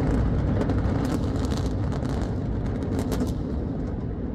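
Low rumble of two multi-storey buildings collapsing in an explosive demolition, with many sharp crackles through the first three seconds, slowly fading.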